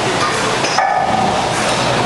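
Loud, steady din of a busy weight room, with no single sound standing out above it.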